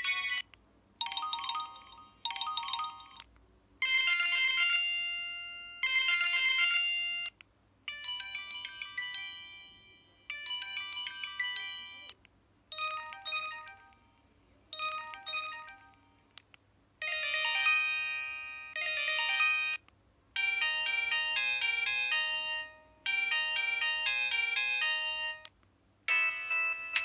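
Samsung SGH-E900 mobile phone playing its built-in alert tones one after another: about a dozen short electronic melodies of a second or two each, separated by brief pauses.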